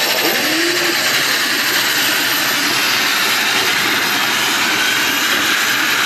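Modified pulling tractor's engine running at full power during a pull. It makes a loud, steady din that holds without a break.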